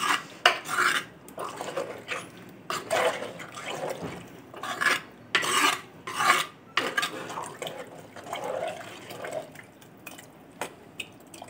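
Steel ladle stirring thick curry in a clay pot, scraping against the pot in a run of irregular strokes, as the curry is stirred to check its consistency.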